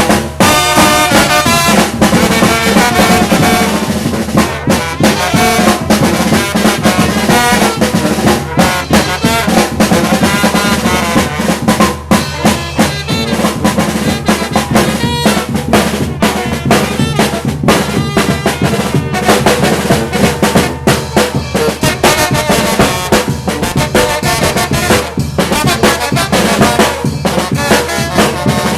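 Mexican banda brass band playing live: trumpets and trombones over snare and bass drum, loud and steady.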